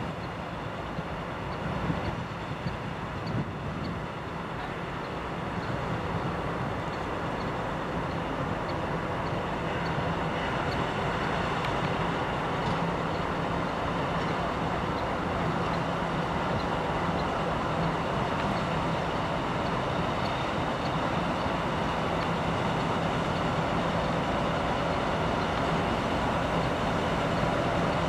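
ChME3 diesel shunting locomotive's engine running as the locomotive moves slowly along the track, growing steadily louder as it draws near. A few sharp clicks come about two to three seconds in.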